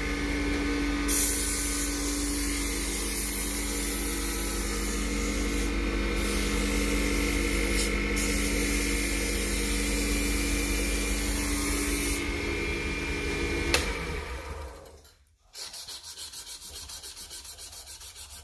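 Padauk wood being hand-sanded with fine 600-grit sandpaper: a steady rubbing hiss for about fourteen seconds, then after a short break a quieter run of quick, even back-and-forth strokes.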